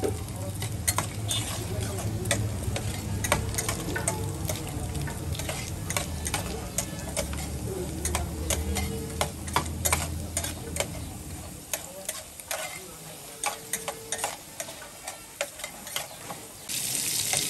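Dried buffalo meat (sukuti) frying in hot oil in a metal pan, sizzling while a metal spatula stirs it, scraping and clicking against the pan. A low hum runs under it for the first two-thirds and then stops; near the end the sizzle suddenly gets louder.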